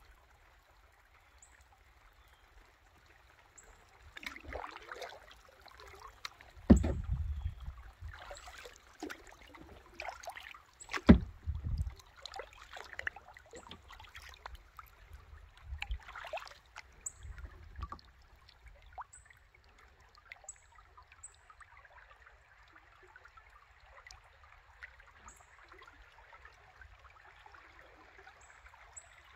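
Creek water splashing and lapping around a kayak, broken by two sharp knocks with a deep thud, about a quarter and a third of the way in. The second half settles into a soft, steady trickle of moving water.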